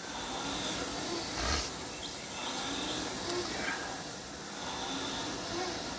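Concept2 air rowing machine's fan flywheel whooshing as it is rowed, swelling and easing with each stroke.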